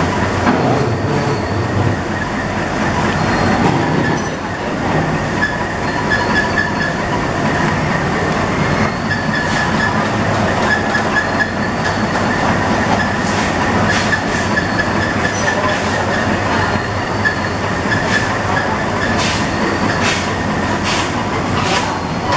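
Packaging rewinder machine running steadily with a dense mechanical clatter and a faint steady whine. Sharp ticks come more and more often toward the end.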